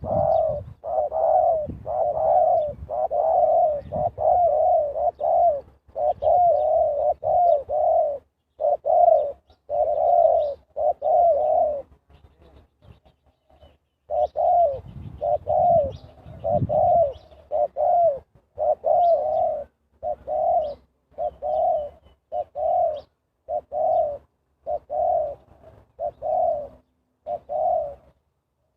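Spotted dove cooing in repeated phrases, a decoy bird calling to lure wild doves, with a short break about twelve seconds in.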